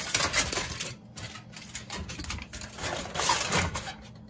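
Aluminium foil crinkling and crackling as it is spread over a cooking pot and crimped around the rim, in irregular spells with a short lull about a second in.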